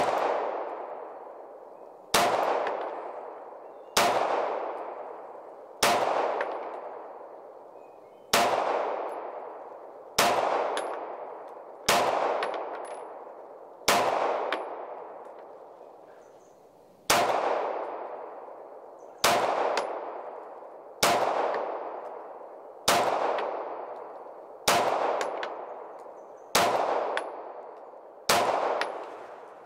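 FN FNS9 9mm pistol fired slowly, about fifteen shots roughly two seconds apart, each shot's report fading out over a second or two.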